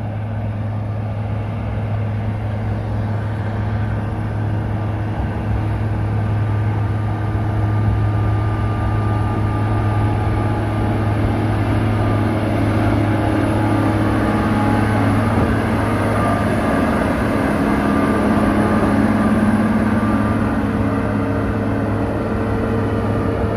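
Mount Washington Cog Railway diesel locomotive running steadily under load as it pushes a passenger coach up the steep rack grade: a deep, even engine drone that grows a little louder past the middle.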